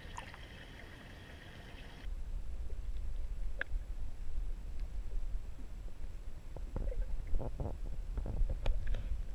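Low, muffled rumble of water heard through an underwater camera, with scattered faint clicks and knocks. It cuts in suddenly about two seconds in, after a short stretch of faint, steady open-air hiss.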